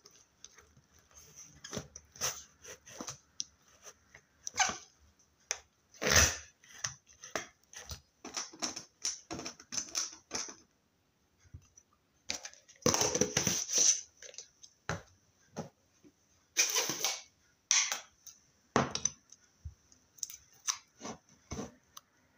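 Slime being squeezed and worked by hand: irregular sticky clicks and pops, with longer squishing bursts about six, thirteen and seventeen seconds in.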